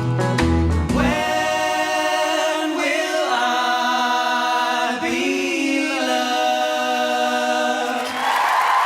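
Four male voices singing in close harmony, unaccompanied after the backing band stops about a second in, holding the last long chords of the song. Audience applause and cheering break out near the end.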